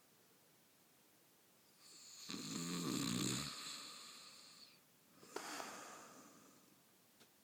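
A man snoring in his sleep: one loud, low snore starts a little over two seconds in and lasts about a second, trailing off into breath noise. About five seconds in comes a quieter, airy breath with no snore in it.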